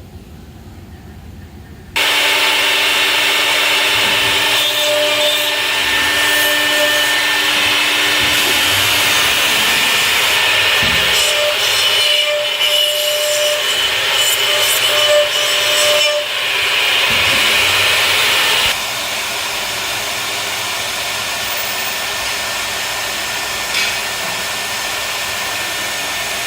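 CNC dovetailing machine cutting wood. Its router starts abruptly about two seconds in, with a loud steady cutting noise, and about three quarters of the way through it drops to a quieter steady run.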